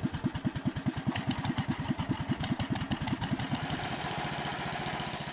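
Small engine running with even chugging beats, about eight to ten a second, that quicken until they blend into a steady run about three and a half seconds in, as if it is just picking up speed after starting.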